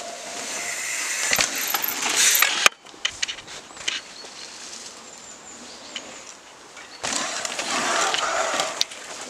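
Mountain bike tyres rushing over a leaf-covered dirt trail as riders pass close by: a first rush that cuts off suddenly about two and a half seconds in, a quieter stretch with scattered light clicks, and a second rush near the end.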